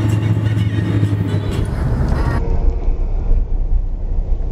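Vehicle driving on a winding road, steady engine and road noise heard from inside the cab. About halfway through the sound changes abruptly and turns duller.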